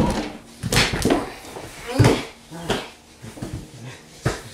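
Two people scuffling on a hard floor: a run of sudden thuds and bumps from bodies hitting and sliding on it, the loudest about two seconds in, mixed with grunts and shouts.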